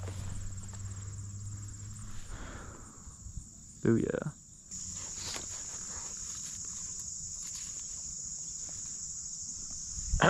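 A steady, high-pitched drone from a chorus of late-summer field insects, louder after about five seconds. A short vocal sound about four seconds in.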